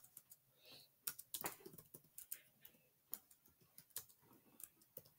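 Near silence broken by faint, irregular clicks of a computer keyboard.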